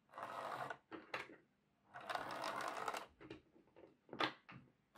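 Short bursts of a small whirring, ticking mechanism, four in a row, with a single sharp click a little after four seconds in.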